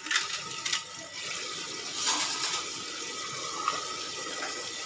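Water running from a kitchen tap into the sink while dishes are being rinsed, a steady rush.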